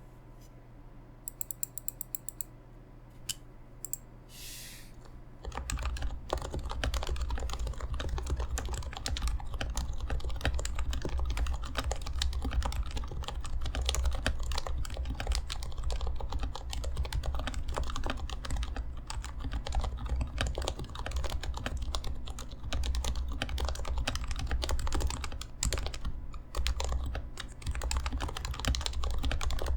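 Continuous fast typing on a Happy Hacking Keyboard Professional Classic 3 with Topre-style 45g rubber-dome capacitive switches, lubed sliders and silencing rings. It starts about five seconds in, after a few faint clicks.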